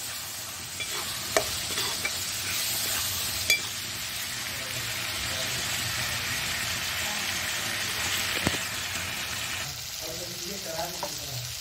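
Onion-tomato masala with ground spices sizzling in oil in a metal kadhai, stirred with a metal spatula that clicks and scrapes against the pan a few times. The sizzle eases off near the end.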